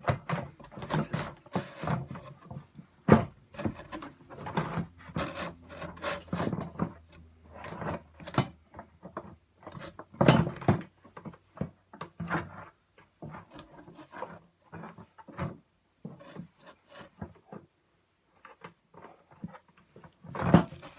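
Irregular knocks, clatters and rubbing as skeleton pirate prop parts are handled and forced into place, with a sharper knock about three seconds in and a quieter stretch about three-quarters of the way through.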